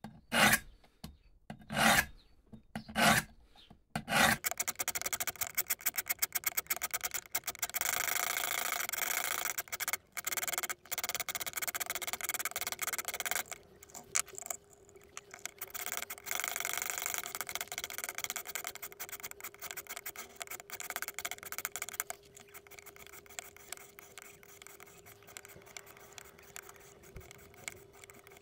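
Sharpening stones of a Wicked Edge guided sharpening system rasping along a clamped seax knife blade in quick back-and-forth strokes. A few separate strokes come first, then a long run of fast, steady strokes that grows softer in the last several seconds, with a faint steady tone underneath from about the middle on.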